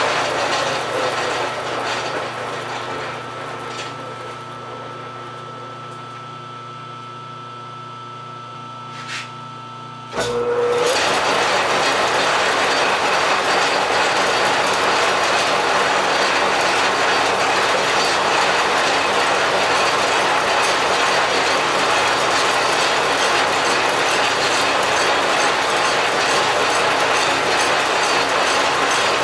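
A large American Tool Works engine lathe running, turning a brazed cast-iron transmission housing to take the braze off. The noise fades over the first few seconds to a quieter running sound. About ten seconds in it comes back loud and steady all at once.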